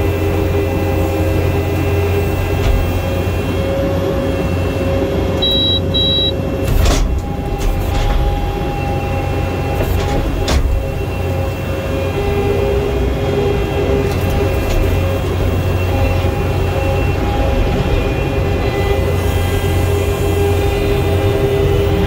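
Skid steer's diesel engine running steadily under load while its grapple bucket works railroad ties, with steady whining tones over the engine. A couple of sharp knocks come about seven and ten seconds in, and two brief high beeps sound about five and a half seconds in.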